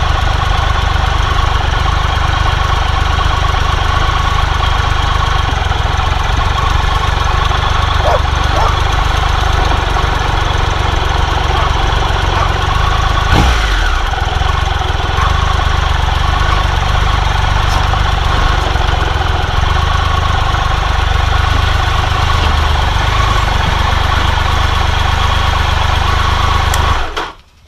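Motorcycle engine running steadily at low speed, heard from a camera on the bike, with a single knock about thirteen seconds in. The sound cuts off sharply near the end.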